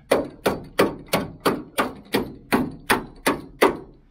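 A small hammer strikes rusted sheet steel on a 1972 Chevy Nova's lower quarter panel about eleven times, roughly three blows a second. Each blow is a sharp knock with a short ring. The hammering is breaking the old patch metal off along its ground-down welds.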